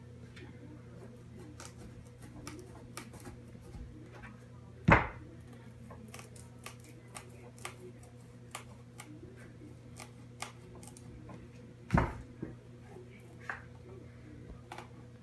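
Chef's knife being forced through the hard rind of a spaghetti squash: a run of small cracking clicks as the blade works in, with two heavy thumps about five and twelve seconds in.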